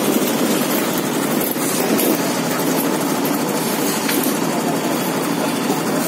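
Steady engine noise of construction machinery running during a concrete slab casting, with no clear rhythm or change.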